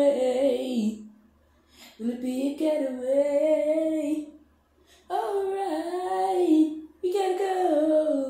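Unaccompanied wordless singing: a voice hums or vocalises drawn-out notes in several phrases, with short silent breaks between them.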